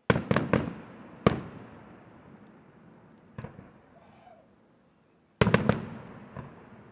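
Aerial firework shells bursting in the night sky. A quick cluster of bangs comes first, then a sharp single bang about a second later and a lighter one midway, and a fresh rapid cluster starts near the end. Each bang trails off in a rolling echo.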